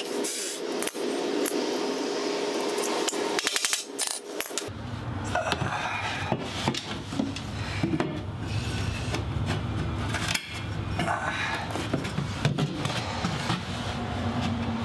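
Metal knocking and clinking against an old sewing machine used as an anvil: separate sharp strikes, some in quick groups. About five seconds in, the sound changes abruptly to a low rumble with scraping and handling knocks.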